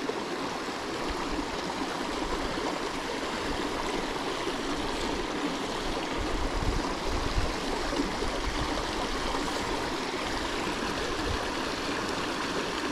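Small mountain creek running over rocks and riffles: a steady rush of flowing water, with a brief low rumble about six seconds in.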